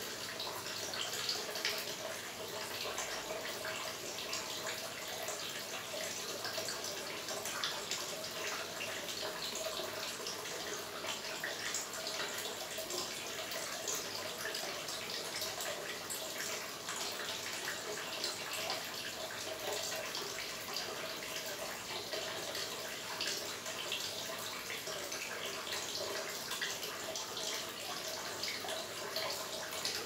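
Small garden water fountain running, water spilling over stacked dishes into a shallow pool: steady trickling and splashing with many little drips.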